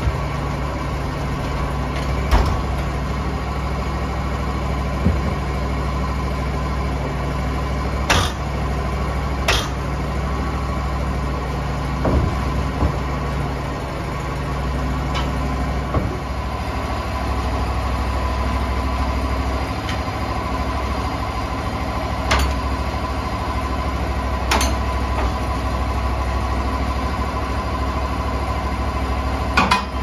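Logs knocking and thudding as they are rolled with a cant hook onto the bed of a portable bandsaw mill, a sharp clunk every few seconds, over a steady low machine hum.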